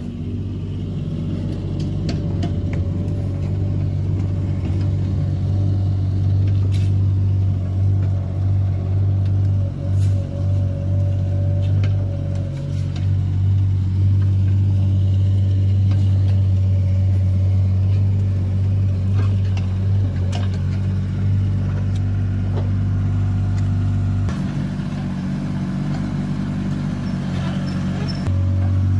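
Sany SY16C mini excavator's diesel engine running with a steady low drone. The drone drops for a few seconds near the end and then rises again.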